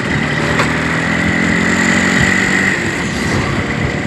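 Road traffic: a vehicle engine running over steady road noise, its engine hum fading out a little past the middle.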